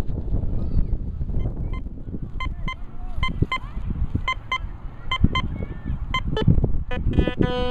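Fisher F4 metal detector's speaker giving short high beeps, mostly in pairs, as the coil sweeps over a target, then a lower, longer buzzing tone near the end. A low rumble of wind on the microphone runs underneath.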